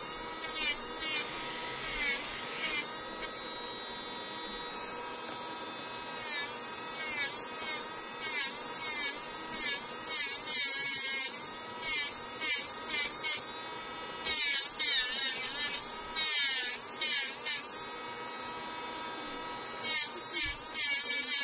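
Electric nail drill (e-file) running with a steady high whine; each time the bit is pressed to the nail its pitch sags and a harsh grinding noise comes through, in repeated short strokes with a couple of pauses.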